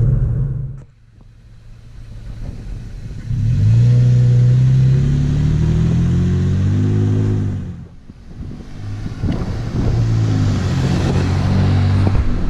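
Toyota Tacoma's 3.5-litre V6 through an aFe Hi-Tuck cat-back exhaust, accelerating away twice, its note climbing in pitch as the revs rise. The first pull starts about three seconds in and cuts off sharply near the middle; the second follows a second later.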